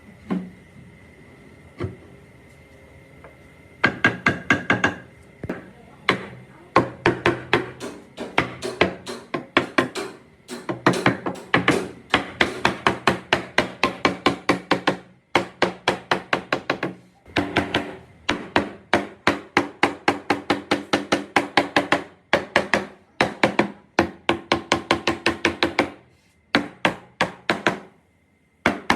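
Rapid hammer strikes on a ringing metal piece, several a second, in long runs broken by short pauses.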